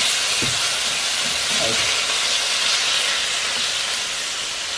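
Raw chicken pieces sizzling in hot oil in a steel wok, a loud, steady hiss that eases off slightly as it goes.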